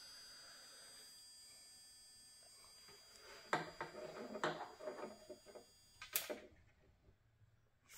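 Faint steady hiss with a thin high-pitched whine from a running Valeo xenon ballast driving its lit bulb. About three and a half seconds in come a few light knocks and clicks, then a sharp click near the end, after which the sound drops out.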